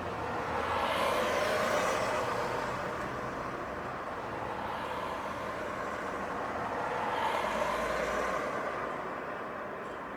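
Street traffic: two vehicles pass one after the other, their tyre and engine noise swelling and fading, loudest about a second and a half in and again about seven and a half seconds in.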